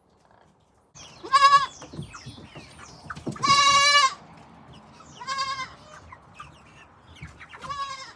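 Goat bleating four times, high-pitched and wavering. The second call is the longest and loudest.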